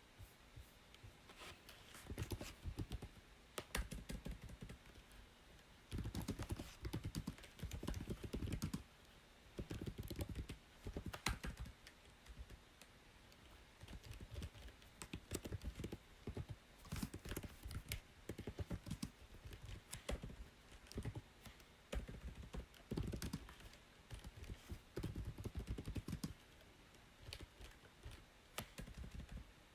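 Typing on a computer keyboard in quick runs of key clicks, broken by short pauses every few seconds.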